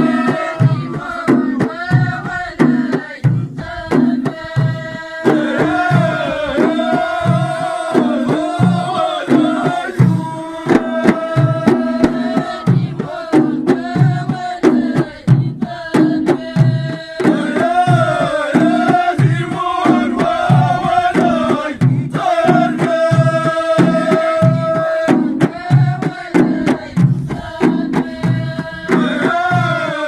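Ahidous: a group singing in chorus in sung phrases with held notes and short breaks, over steady beats of bendir frame drums.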